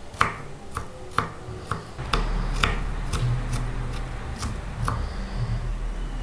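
Kitchen knife chopping a red onion on a wooden cutting board: evenly paced knocks of the blade on the board, about two a second. A low steady hum comes in about two seconds in.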